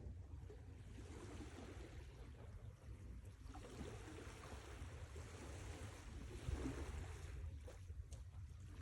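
Sea waves washing in and drawing back, faint, with a steady low rumble beneath; the wash swells about a second in and again midway, then eases near the end.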